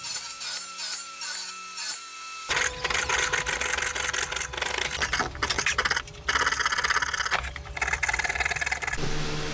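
A steel wood chisel paring and scraping out a notch in pallet-wood, a dense rasping scrape full of rapid small clicks, in spurts with short pauses. It starts abruptly about two and a half seconds in, after a steady hum.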